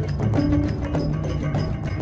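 Background music with a quick, even percussive beat over repeating low notes.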